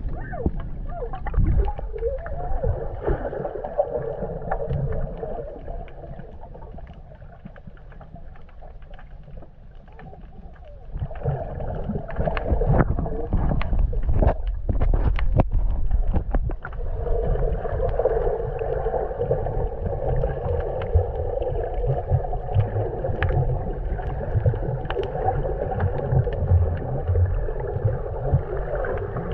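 Muffled underwater noise picked up by a camera held underwater while snorkelling: a low rumble of moving water, quieter for a few seconds in the middle, with scattered clicks and knocks.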